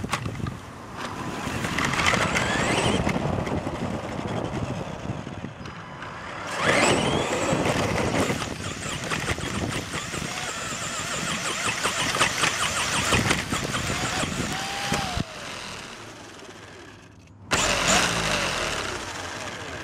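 Onboard sound of a Tamiya Super Hornet electric RC buggy being driven. Its motor and gears whine, rising in pitch several times as it speeds up, over the rattle and rumble of the car running across the ground. The whine drops away for a while, then comes back loud and sudden near the end.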